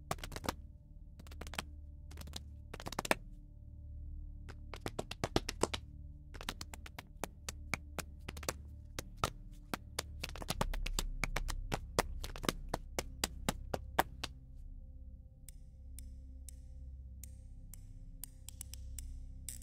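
Sampled soft solo hand claps played in rhythmic patterns, some in quick flurries. About 14 seconds in, the sound changes to a sampled clicky toy: lighter, thinner clicks, each with a short high ring.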